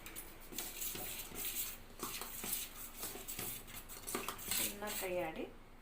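A spoon stirring thick fermented rice-flour batter in a vessel, with repeated scraping and clinking strokes against the pot.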